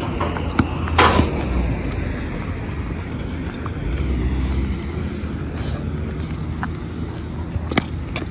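Wind buffeting the microphone with a steady low rumble during an outdoor walk, with a short sharp knock about a second in and a few faint clicks.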